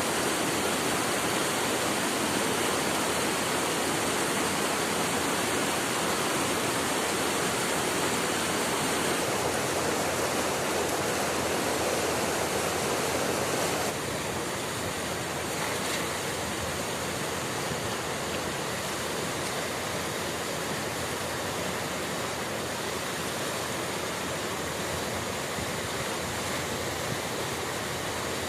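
Flowing river water rushing steadily, an even hiss with no distinct events; it steps down a little in loudness about halfway through.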